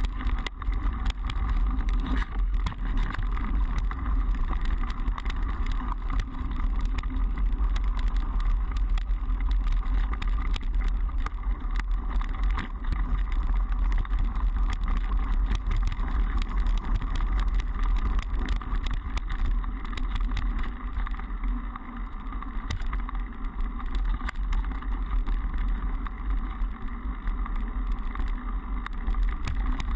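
Mountain bike riding over a dirt trail, heard through a GoPro: continuous wind rumble on the microphone with many small knocks and rattles from the tyres and bike over the rough ground.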